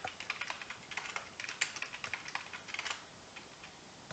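Typing on a computer keyboard: a quick run of keystrokes, as when entering a password, that thins to a few isolated clicks about three seconds in.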